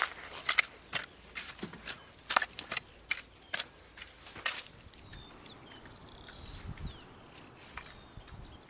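A dozen or so sharp, irregular clicks or snips over the first four and a half seconds, then faint bird chirps.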